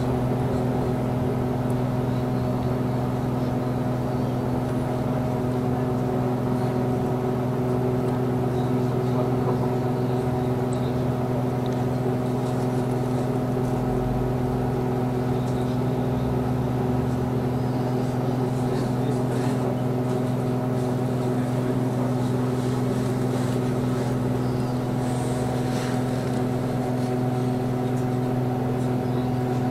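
Steady electric hum of a trolleybus heard inside the cabin while it stands almost still: a low, even drone made of several fixed tones, with faint scattered ticks and clicks.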